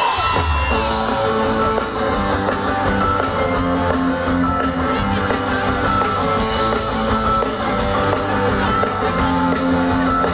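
Live pop-rock band playing an instrumental passage without vocals: electric guitar and bass over drums with a regular cymbal beat, through a concert PA.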